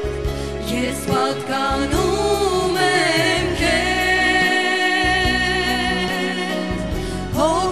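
Two women singing a Christian hymn together into microphones, their voices held with vibrato over sustained low backing notes.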